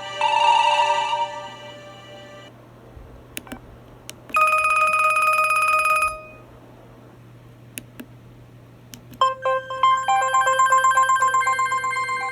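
LG enV (VX9900) cell phone playing its ringtones through its speaker: a warbling ring that stops about a second in, a few short clicks, a single steady tone for about two seconds, more clicks, then a new melodic ringtone starting near the end.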